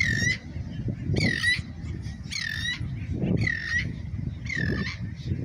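Gull calling five times, about a call a second, each call a harsh note that slides down in pitch. A low rumble runs underneath.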